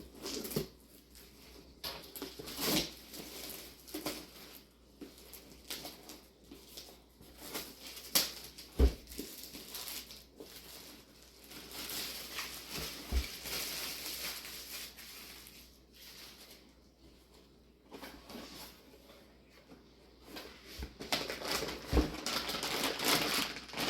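A power supply's cardboard box and packaging being opened and handled: intermittent rustling and crinkling with scattered clicks and knocks, and a few dull thumps as parts are set down.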